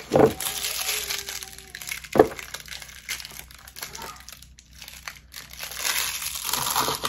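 Thin plastic shrink-wrap crinkling as it is handled and pulled off a small cosmetic jar, in two spells of rustling. There are two sharp knocks, one at the very start and one about two seconds in.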